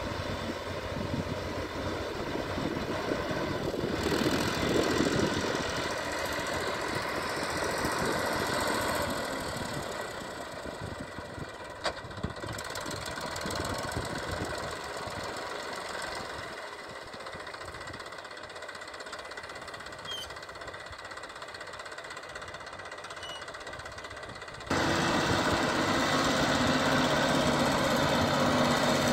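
Massey Ferguson 7250 DI tractor's three-cylinder diesel engine running steadily under load while working a gyrovator through wet paddy mud. It grows fainter through the middle, then turns suddenly louder and closer near the end.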